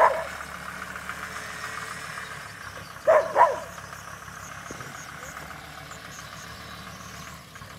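Two pairs of short dog barks, one at the very start and one about three seconds in, over the faint steady running of a car engine as the car manoeuvres.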